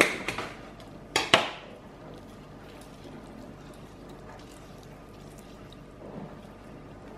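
Sharp clatters of a kitchen knife and utensils set down on a hard tabletop, the loudest about a second in. After that there is only faint handling as a lemon half is squeezed by hand.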